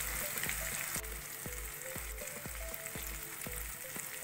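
Sliced onions and whole spices sizzling in hot oil in a kadai, a steady frying hiss. Background music with a steady beat of about two pulses a second plays over it, stopping near the end.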